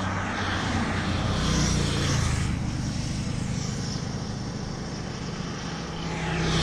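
Yamaha XJR1300 motorcycle with an Akrapovič silencer running at road speed, its engine hum steady under a rush of wind, pulling a little louder near the end.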